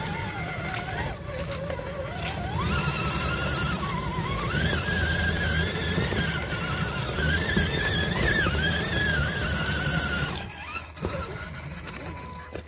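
Electric motor and gear drive of an RC crawler whining, the pitch wavering with the throttle and climbing sharply about three seconds in, then cutting out about ten seconds in.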